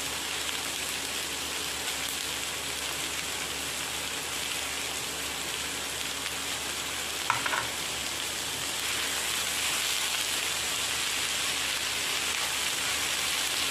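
Chopped cabbage, carrot and chicken frying in oil in a non-stick pan, a steady sizzle, stirred at times with a wooden spatula. A short clatter comes about seven seconds in.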